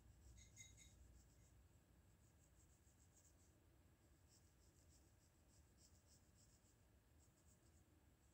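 Faint scratching of a hard 2H graphite pencil on drawing paper, in short strokes that come in quick clusters.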